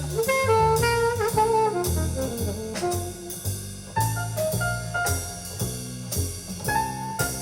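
Jazz music with a horn lead over bass and a drum kit.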